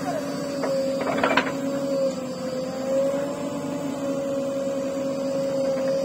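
JCB backhoe loader running as its backhoe arm digs into soil: a steady engine drone with a slightly wavering whine, and a short cluster of knocks about a second in.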